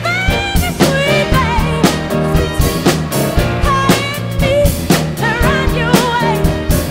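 Drum kit played in a steady groove along with a song that has a singing voice and backing instruments.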